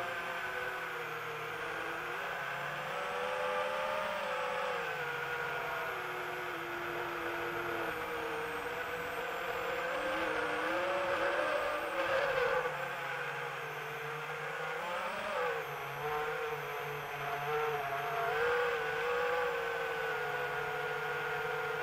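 Multirotor drone's electric motors and propellers whining steadily as it flies, the pitch wavering up and down with small rises as it manoeuvres.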